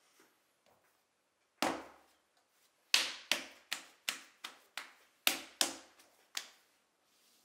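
Hands slapping a lump of white clay down onto a wooden bat fixed to a stopped potter's wheel. There is one heavy thump as the lump lands, then about ten sharp slaps in quick succession, about three a second.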